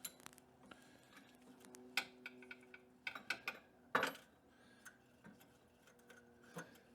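Scattered metallic clicks and light knocks from handling a bench grinder while fitting and tightening the wire wheels on its arbor, the loudest knock about four seconds in. The grinder is not running.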